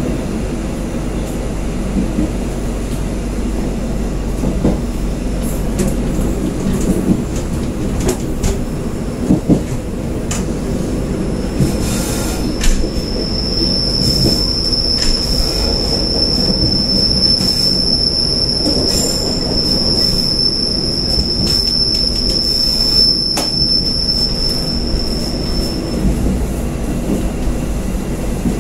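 KA Pangrango passenger train's wheels running on the rails, with a steady rumble and scattered clicks. From about a third of the way in until near the end there is a long, high, steady squeal as the wheels take a curve.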